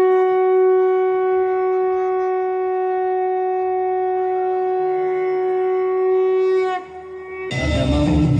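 Conch shell (shankha) blown in one long, steady note, played back over stage loudspeakers in devotional dance music. The note sags slightly in pitch and dies away about seven seconds in. Near the end the music comes back in with a beat.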